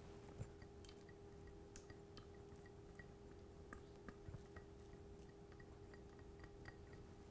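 Near silence: a faint steady room hum with small soft clicks and ticks as a silicone spatula scrapes thick oyster sauce out of a small glass cup into a glass bowl.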